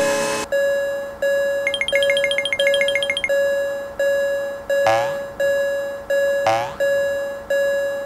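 Animated railroad crossing warning bell ringing steadily, a bright ding about every 0.7 seconds. About two seconds in, a quick run of high pips plays for over a second, and three rising swoop effects sound in the second half.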